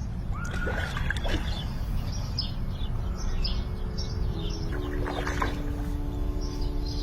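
Birds chirping repeatedly over a steady low rumble, with held musical notes entering about four seconds in.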